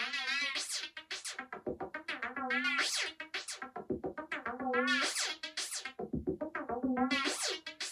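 Electronic background music: warbling synthesizer notes over a repeating beat.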